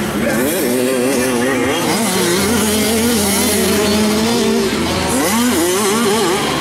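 Small 65 cc two-stroke motocross bikes racing on a dirt track. Their engines rev hard, the pitch repeatedly climbing and dropping as the throttle opens and closes, with quick up-and-down swoops about half a second in and again around five seconds in.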